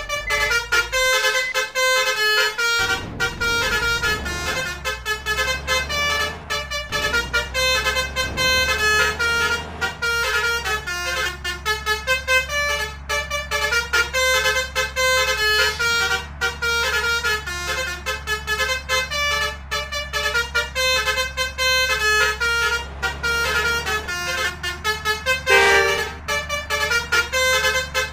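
Bus 'telolet' basuri musical air horn playing a fast melody, its notes changing several times a second without a break. A steady low engine hum comes in under it about three seconds in.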